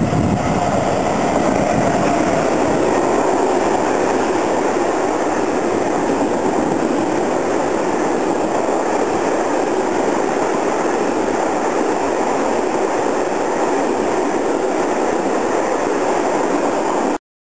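An SNCF BB 27000 electric locomotive hauling a freight train of grain hopper wagons passes at speed, with a steady rumble and rattle of wheels on the rails. The sound cuts off suddenly near the end.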